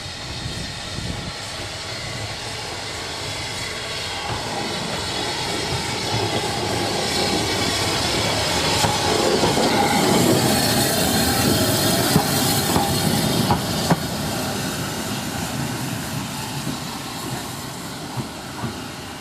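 Steam train running slowly on the line, its wheels clacking over the rail joints. It grows louder to a peak about halfway, with a few sharp knocks, then eases off.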